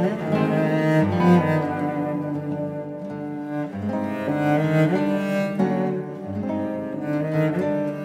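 Cello and classical guitar duet: the cello bows a sustained melody while the nylon-string guitar plucks an accompaniment.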